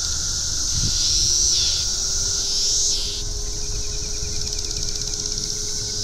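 Chorus of periodical cicadas: a dense, steady, high-pitched drone, with two louder calls in the first half, each about a second long, sliding up and then down in pitch.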